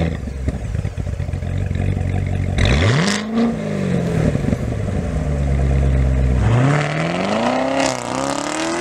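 Chevrolet Corvette Z06 V8 engine with solid burbles, revving up and back down about three seconds in. From about six and a half seconds it accelerates with rising pitch, dipping briefly near eight seconds before climbing again.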